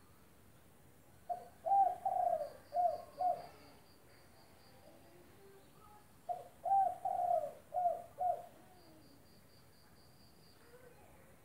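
Spotted dove (tekukur) cooing: two phrases of about five coos each, a few seconds apart, with the longest, strongest coos early in each phrase. A faint rapid high ticking, like an insect, runs between the phrases.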